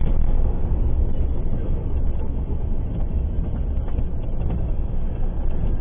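Steady low rumble of a vehicle's engine and tyres on the road, heard from inside the cab while driving, with a few faint clicks.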